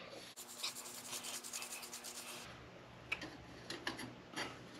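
Light scraping rasp as a friction clutch plate is slid down the splines of a 48RE forward clutch hub, followed by a few soft clicks of metal parts being set down.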